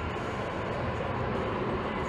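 Boeing 747-400 freighter's four GE CF6-80C2 turbofan engines at takeoff thrust during the takeoff roll: a steady roar with a faint whine running through it.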